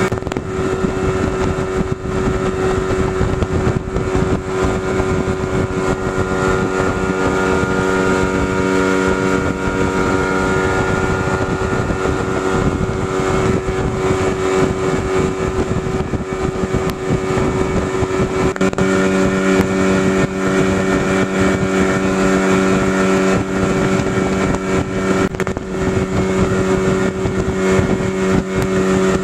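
A small boat's motor running steadily under way at a constant pitch, its note growing fuller about two-thirds of the way through.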